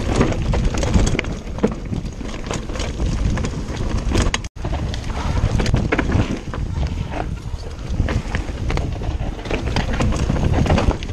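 Empire mountain bike riding fast down a dirt trail: tyres rumbling over the ground with wind on the microphone, and frequent rattling knocks from the bike over roots and bumps. The sound cuts out for an instant about four and a half seconds in.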